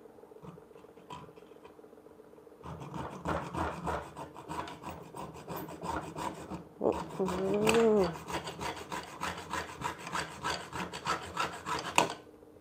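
Hand hacksaw cutting a cured acrylic-based SLA resin 3D print held in a bench vise: quick back-and-forth rasping strokes that start a few seconds in and stop near the end, the resin grinding away to powder rather than cracking. A short wavering tone rises and falls about seven seconds in.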